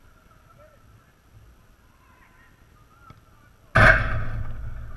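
Faint, distant shouts of players, then a sudden loud hit close to the microphone nearly four seconds in that rings and dies away over a second or so.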